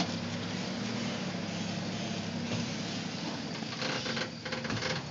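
Engine of a tube-chassis rock-crawler buggy running steadily at low revs as it crawls over rocks, with a short cluster of knocks about four seconds in.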